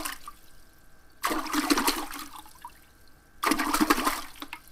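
Lake waves splashing against the pier's rock breakwater, three separate splashes about two seconds apart, each dying away within a second or so.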